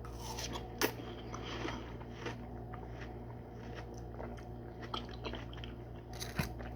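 A person chewing and biting into watermelon: scattered small wet clicks and crunches, one sharper click about a second in.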